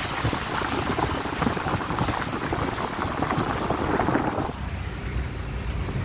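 Heavy rain pattering densely around a moving vehicle, with its engine running low underneath; the crackling patter thins out abruptly about four and a half seconds in.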